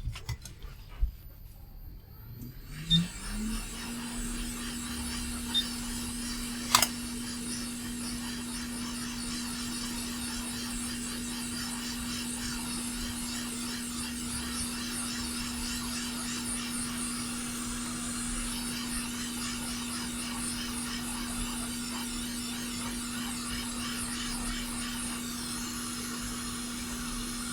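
Hot air rework station blowing on a circuit board to desolder a through-hole HDMI socket: its fan spins up over about a second, then runs with a steady hum and air hiss. A single sharp click comes a few seconds after it starts.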